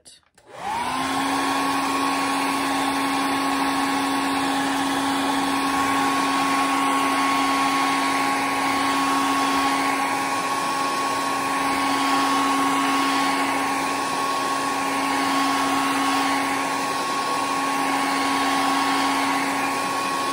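Handheld hair dryer switches on about half a second in, winds up briefly and runs steadily: a rush of blown air with a constant whine on top.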